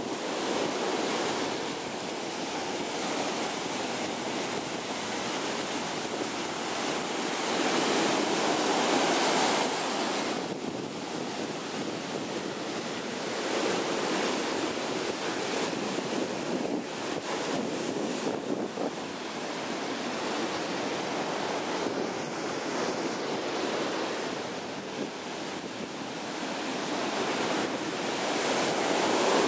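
Ocean surf breaking and washing up the beach: a continuous rushing of foaming water that swells as each wave comes in and ebbs between them, every several seconds.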